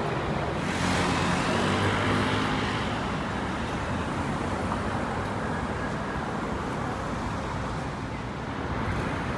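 City street traffic: a steady wash of passing vehicles, with one vehicle's engine passing close and loudest during the first two or three seconds.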